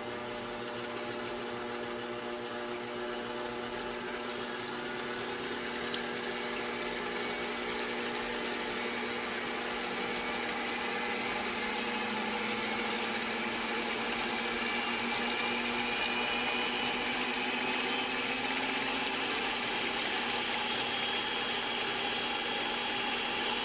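Sunbeam MixMaster Heritage Series stand mixer motor running with its two beaters whipping cold heavy cream in the steel bowl. It makes a steady whine that climbs slowly in pitch and loudness as the speed is turned up toward 12.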